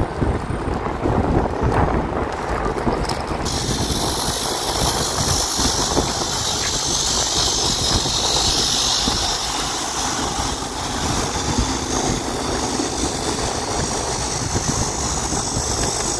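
Wind buffeting the microphone of a moving bicycle, a rough, steady rumble. A steady high hiss starts sharply about three seconds in and cuts off near the end.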